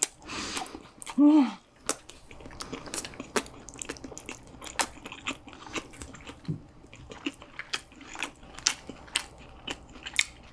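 Close-miked eating sounds: a person chewing, with many short, sharp mouth clicks and smacks and a louder burst about a second in.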